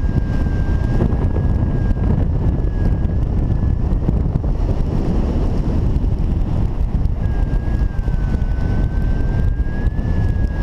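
Wind rushing over the microphone of a paraglider pilot in flight, a steady heavy buffeting. A thin high tone sounds over it at the start and again from about seven seconds in, dipping slightly in pitch and rising again.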